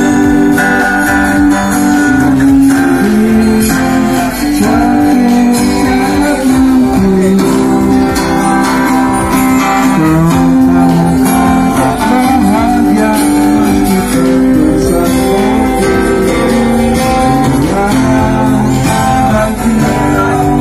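Loud guitar music with a steady bass underneath and a faint singing voice.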